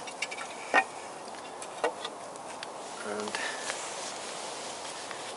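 A few sharp clicks and clinks of metal engine parts being handled and set down, the loudest about a second in, over a steady background hiss.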